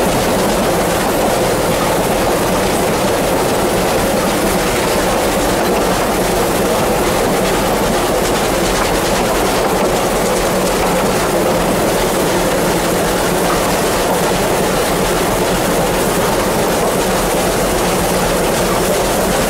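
Steady running noise of a Vale of Rheidol narrow-gauge steam train heard on board: the carriage's wheels rumbling and clacking over the track at an even speed.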